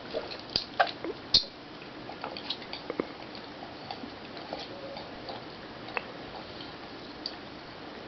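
Scattered small clicks and mouth sounds of soda being drunk and swallowed, over a steady low hiss.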